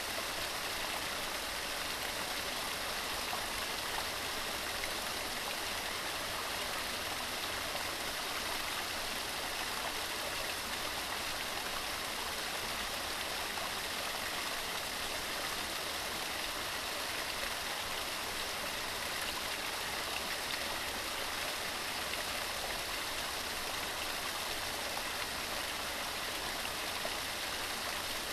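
Forest waterfall: falling water in a steady, even rush, mostly hiss with little low rumble.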